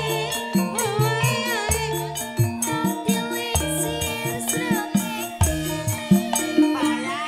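Calung Banyumasan ensemble playing live: a bamboo-xylophone melody over regular drum strokes and steady high ticking, with a woman singing in the first couple of seconds and again near the end.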